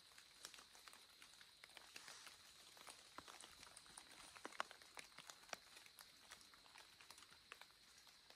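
Near silence in the woods: faint, irregular ticks and clicks scattered throughout, one a little louder about halfway through, over a faint steady high hiss.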